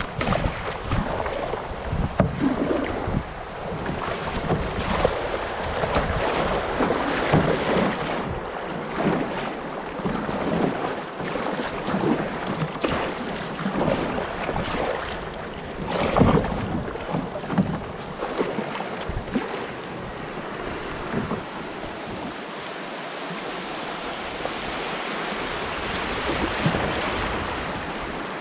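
River water splashing and slapping against a kayak's hull in irregular bursts as it runs through riffles. Near the end this gives way to a steadier, louder rush of choppier water.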